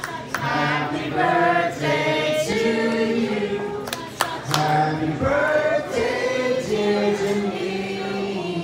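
A man singing a slow song into a handheld microphone, his voice carried over a PA, with other voices in the room singing along.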